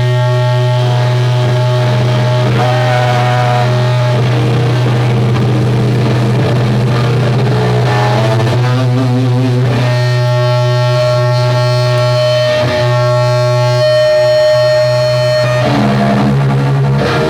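Heavy distorted electric guitar played live at loud volume, holding long sustained notes over a constant low drone, with one note bent upward about three seconds in.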